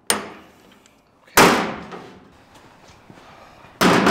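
Three sharp metal knocks and clanks of a torque wrench and sway bar on a steel workbench, each with a short ringing tail. The loudest comes about a second in, and the last near the end as the wrench is laid down on the bench.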